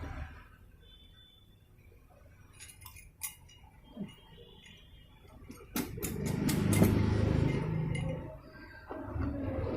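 Light metallic clinks and taps of scooter engine parts and tools being handled during piston and cylinder fitting: a few scattered clicks, then a quick run of sharp clinks with a low rumble of handling underneath.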